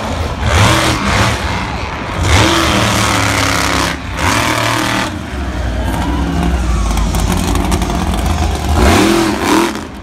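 Monster truck engine revving loudly in repeated bursts as the truck drives, its pitch rising and falling with each rev. The revs are separated by steadier running.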